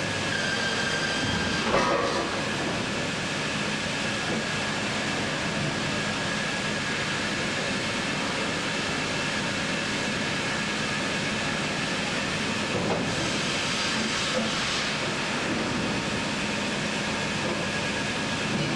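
Sawmill line machinery running steadily, a continuous mechanical noise with hiss and a faint steady whine, with a brief clatter about two seconds in and a short rise in hiss near the end.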